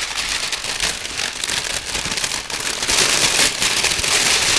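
Foley fire effect made with paper worked in the hands: a dense crackling that imitates huts burning fast, growing louder about three seconds in.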